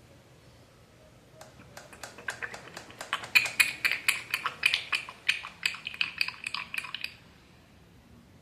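A quick, irregular run of sharp metallic clicks and clinks, about three or four a second, from the motorcycle engine work. It starts about a second and a half in and stops abruptly near the end.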